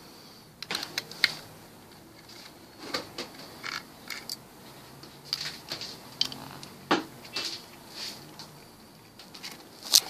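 Scattered light clicks and taps from hands handling a laptop hard drive and its parts, with a sharper click about seven seconds in and another at the very end.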